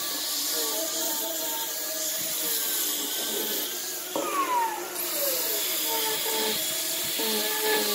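Handheld electric angle grinders with sanding attachments running and sanding a curved wooden piece. About four seconds in, one motor winds down with a falling whine. Soon after, the other starts up and sands again.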